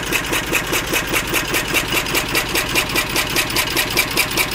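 Lister CS 6/1 single-cylinder diesel stationary engine running steadily at about 650 rpm with a slow, even beat of about five strokes a second, driving a 2.5 kVA generator on a mix of waste motor oil and red diesel.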